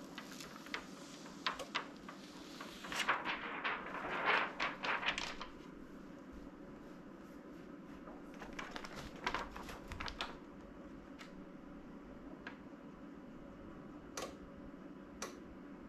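Clear plastic heat-transfer vinyl carrier sheet crinkling and rustling as it is handled and lifted off the shirt, in two spells of crackly handling noise, with a few light taps near the end over a faint steady hum.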